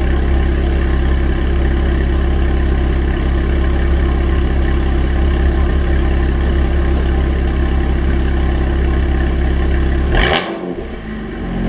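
BMW 335i's N54 twin-turbo inline-six running with catless downpipes on the stock exhaust, a loud steady drone. About ten seconds in there is a short sharp noise, and the engine sound drops away for about a second before it returns.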